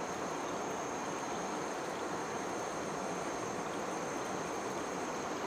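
Steady rush of flowing river water, with a continuous high-pitched insect drone over it.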